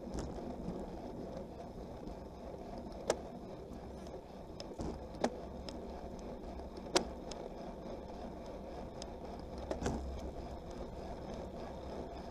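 Rushing wind and rolling road noise of a road bike ridden at sprint speed, picked up by a camera mounted on the bike, with a steady low rumble and several sharp clicks along the way.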